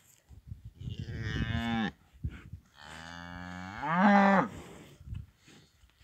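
Cattle mooing twice: a short moo about a second in, then a longer, louder moo that rises in pitch near its end.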